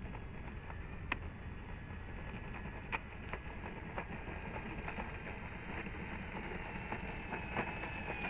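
Steady wind rumble on the microphone. A faint high-pitched whine climbs in pitch over the last couple of seconds, with a few faint clicks scattered through.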